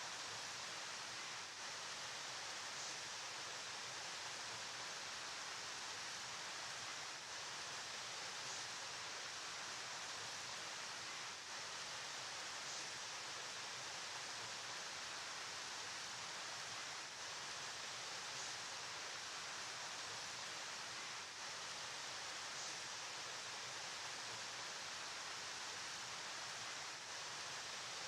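Steady, even rushing of flowing river water, a bright hiss with small brief dips every few seconds.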